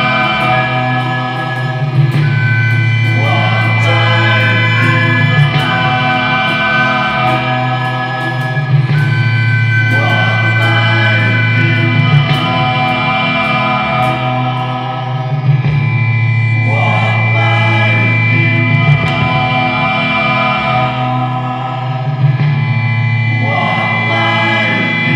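Slow folk song with layered, choir-like singing over held chords and strummed nylon-string guitar. A swell in the sound comes back about every seven seconds.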